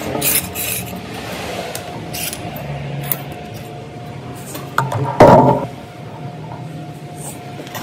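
Intermittent scraping and rubbing from hand-tool work, with one louder, longer scrape a little past five seconds in.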